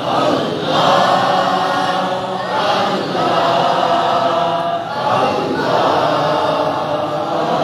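Many voices chanting together in unison, a devotional Islamic chant sung in phrases of about two seconds each.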